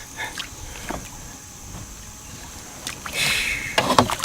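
Handling noises in a canoe on the water: a few light knocks against the boat, then a louder rustling scrape with sharp clicks about three seconds in.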